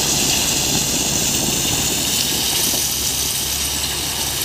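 Tipper truck's diesel engine running steadily while crushed stone (granular sub-base) slides out of its raised body in a continuous rushing pour.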